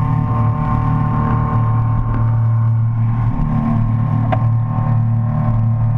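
Motorboat engine running steadily at speed while towing a tube: a constant low drone over the rushing wash of the wake.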